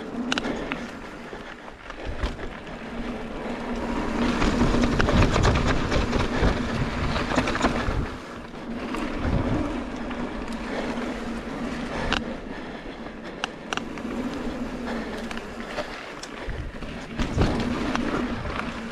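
29er mountain bike riding down rough singletrack, heard from a helmet-mounted action camera. Tyres roll over dirt and rock, with scattered sharp knocks and rattles from the bumps. The rushing noise is loudest from about four to eight seconds in.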